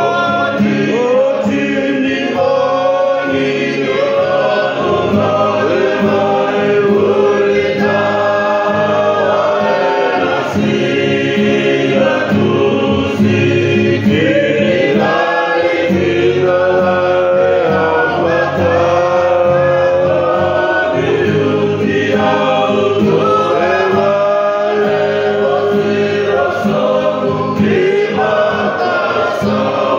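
A group of voices singing together in harmony, with long held notes that slide from one pitch to the next.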